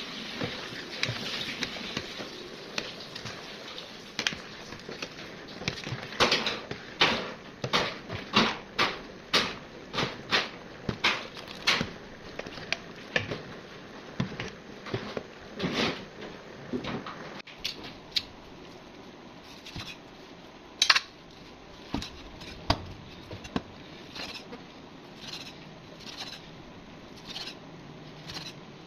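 A metal ladle stirs rice porridge in a large aluminium pot over a steady hiss, knocking against the pot about twice a second for several seconds. Later a cleaver cuts boiled pork belly on a wooden chopping board, with a few separate knocks, one of them loud.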